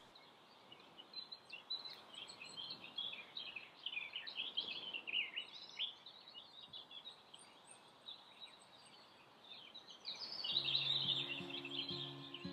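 Small songbirds chirping and singing, quietly, over faint outdoor background noise. About ten seconds in, soft background music with held notes comes in under the birdsong.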